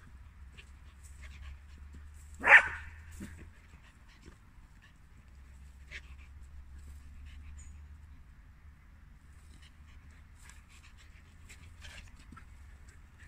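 A dog barks once, sharp and loud, about two and a half seconds in, followed shortly by a quieter second sound.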